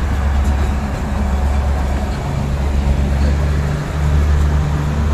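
Neral–Matheran narrow-gauge diesel toy train running along the line: a steady, loud low rumble with a droning engine note.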